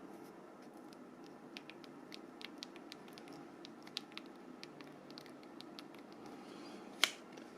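Faint scattered clicks and taps of a mobile phone's plastic housing parts being handled and fitted, with one sharper click about seven seconds in.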